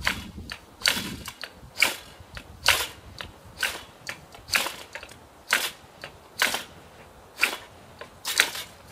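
Ferrocerium rod struck with the spine of a Habilis bush tool: about ten sharp rasping scrapes, roughly one a second. Each stroke throws sparks at dryer lint, still trying to catch.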